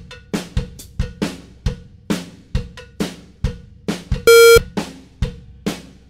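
Upbeat drum-driven background music with a steady beat of kick and snare, about two hits a second. About four seconds in comes a single loud electronic beep lasting about a third of a second.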